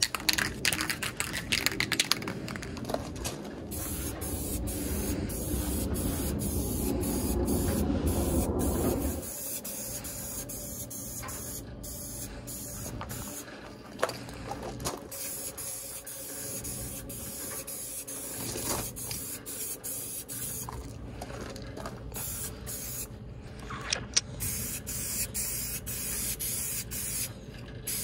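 Aerosol can of metallic silver spray paint hissing as a second coat goes on, in long passes broken by brief stops where the nozzle is let go. A low rumble runs under the hiss for several seconds in the first third.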